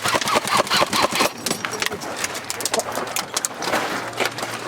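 Airsoft guns firing in a skirmish: a dense, irregular run of sharp snaps and clicks from shots.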